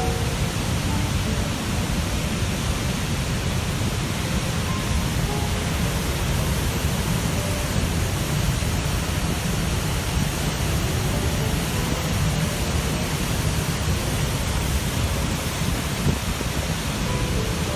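Steady, deep roar of Niagara Falls: dense rushing water noise.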